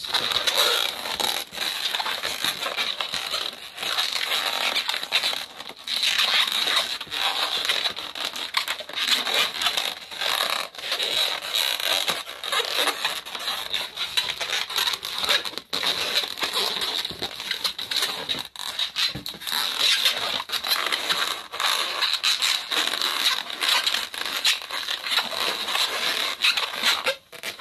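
Latex 260 modelling balloons squeaking and rubbing against each other as they are twisted and wrapped together by hand, a continuous run of squeaks and crackles.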